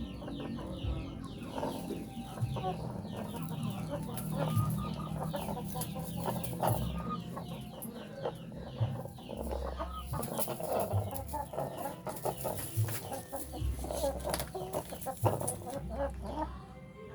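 A flock of chickens clucking, with many short calls overlapping throughout, and scattered low thumps.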